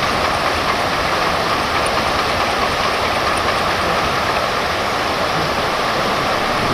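Steady rushing of a fast river current.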